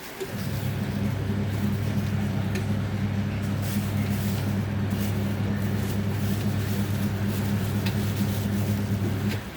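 Washing machine motor running with a steady low hum, switching on just after the start and cutting off suddenly near the end.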